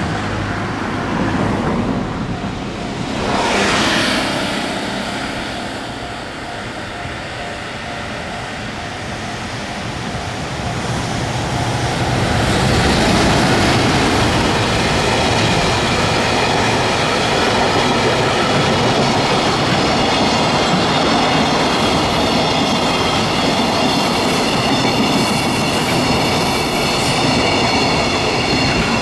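Long container freight train hauled by an EF210 electric locomotive passing close by, its wagons' wheels rumbling steadily on the rails. There is a brief louder rush about four seconds in. From about halfway on the sound grows louder as the wagons go by, with thin high ringing tones from the wheels over the rumble.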